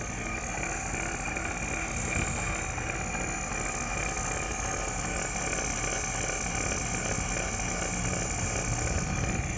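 Refrigerant vacuum pump running steadily, evacuating an air conditioner's refrigerant lines through a manifold gauge set.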